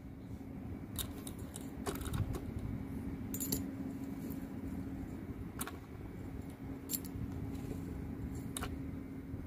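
Small steel bearing balls clicking inside a power steering gearbox's ball nut as the worm shaft is turned by hand to feed them into the recirculating-ball track. There are a few sparse, light metallic clicks, about six in all, over a faint steady hum.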